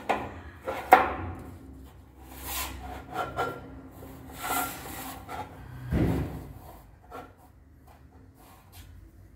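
Marble skirting strips being handled and fitted along the stair wall: stone scraping and sliding against the wall and treads, with scattered knocks. A sharp click comes about a second in and a heavy thump about six seconds in, and it goes quieter after that.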